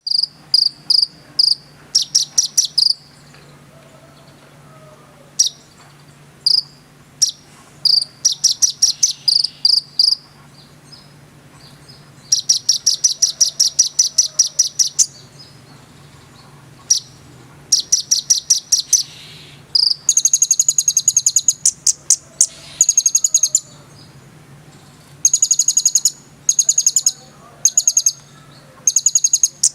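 Brown-throated sunbird (konin / kolibri ninja) singing in loud, rapid trills of high, sharp chirps, in runs of a few notes to several seconds with short pauses between. A faint steady low hum runs underneath.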